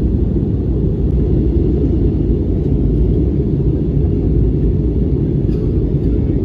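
Steady low rumble of a jet airliner's cabin in flight: engine and airflow noise heard from a window seat.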